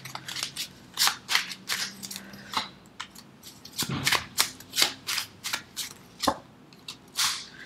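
Tarot cards being shuffled and handled: an irregular run of many short, sharp card snaps and taps.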